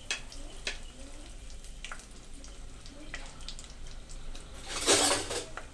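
Whole spices frying in hot oil in an aluminium pressure cooker: a faint sizzle with scattered small pops and crackles, and a louder rush of noise lasting about half a second near the end.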